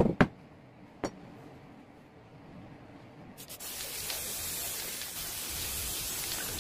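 A couple of sharp knocks near the start and another about a second in. Then, about three and a half seconds in, an aerosol spray-paint can starts a steady hiss as black paint is sprayed onto the billhook blade.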